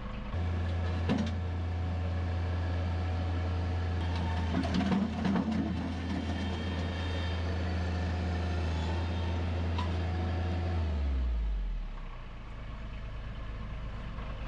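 Engine of a mini stand-on track loader running at high throttle with a steady hum, with a cluster of clanks and scraping from the bucket in the middle, then throttling down to a lower idle about eleven seconds in.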